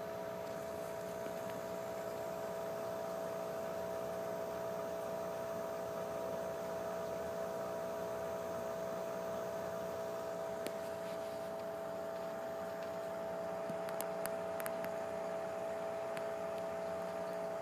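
A steady electrical hum made of several held tones, unchanging throughout, with a few faint ticks in the later part.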